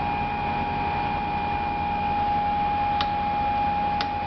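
Steady ship engine-room machinery noise with a constant high-pitched whine, and two sharp clicks about a second apart near the end.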